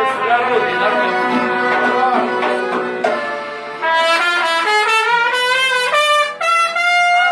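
Trumpet playing a slow melody of long held notes over music. A new phrase starts about four seconds in, with notes that bend and waver in pitch.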